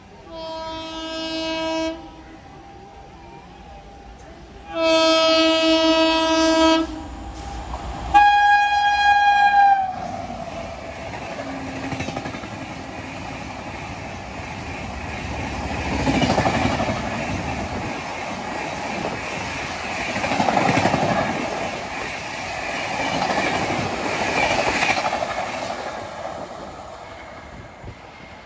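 Electric locomotive of an Indian Railways express train sounding three long horn blasts as it approaches at speed; the third blast is higher and sags in pitch as it ends. The train then passes with a rolling rumble and wheel clatter on the rails that swells and fades several times.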